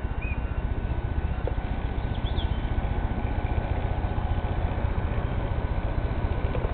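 Steady low rumble of wind buffeting the microphone, flickering rapidly in level, with a couple of faint high chirps.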